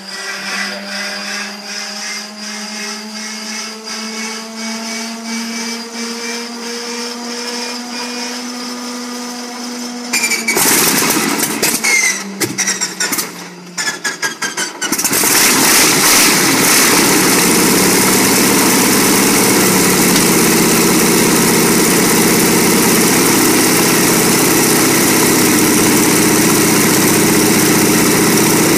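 Shvetsov ASh-62 nine-cylinder radial aircraft engine being cold-started. For about ten seconds a hand-wound inertia starter whines, rising slowly in pitch. Then the engine is turned over and fires unevenly for a few seconds, and about fifteen seconds in it catches and runs steadily.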